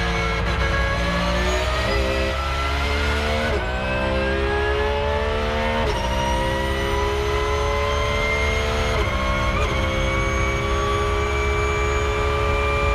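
Porsche 911 GT3 R race car's naturally aspirated flat-six engine heard from inside the cockpit at full throttle, accelerating hard out of a corner and up through the gears. The pitch climbs steadily and drops sharply at four quick upshifts, over a steady low road and wind rumble.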